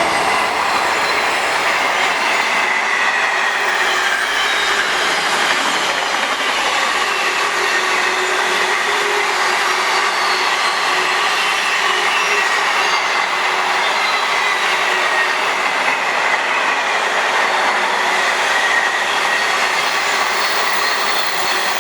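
Freight train of container wagons hauled by a Class 66 diesel passing steadily through the station: continuous rolling noise of wagon wheels on the rails, with a thin high wheel squeal running through it.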